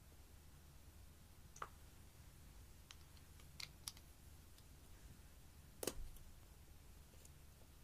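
Near silence broken by a few faint clicks and taps of makeup containers being handled over glass dishes, the loudest a sharp click about six seconds in.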